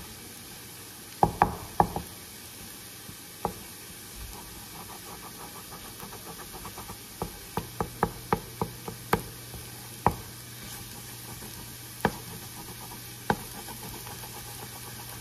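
Wooden spatula knocking and scraping against a worn, formerly nonstick frying pan as an egg is scrambled into fried rice, over a faint sizzle. A cluster of loud knocks comes about a second in, then a run of quick light taps, then a few single knocks.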